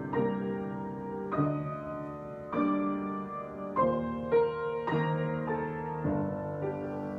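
Piano being improvised on: slow, sustained chords struck about once a second, each left to ring into the next.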